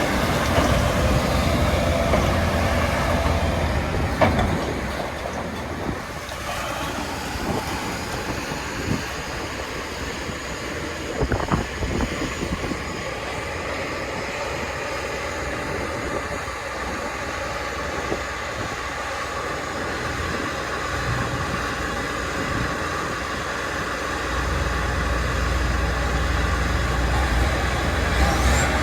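OXBO 8430 sweet corn harvester running in the field: a steady clatter of machinery with a couple of sharp knocks. A deeper engine rumble swells near the end.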